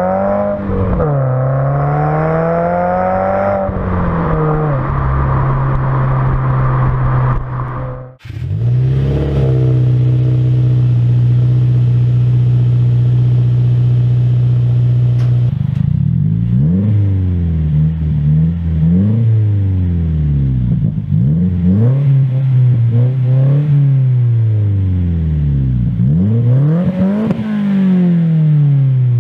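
Subaru WRX's turbocharged flat-four revving through an aftermarket exhaust. After a brief cut about eight seconds in it is held steady at raised revs for several seconds, then blipped up and back down about every two seconds.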